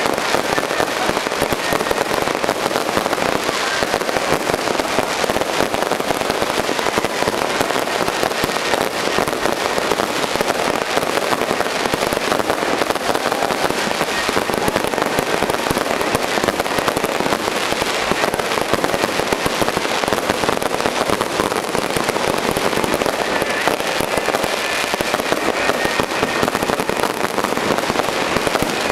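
Fireworks crackling without pause: a dense, steady stream of rapid small pops and crackles.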